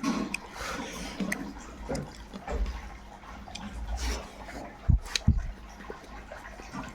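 Close-up eating sounds: wet chewing and slurping of food, with irregular small clicks. Two sharp knocks come about five seconds in.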